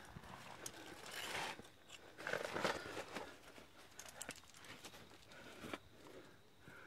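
A rock climber's hands and shoes scraping and scuffing on the rock of a crack, with clothing rustling. The louder scrapes fall about a second in and again between two and three seconds in, with scattered small clicks between.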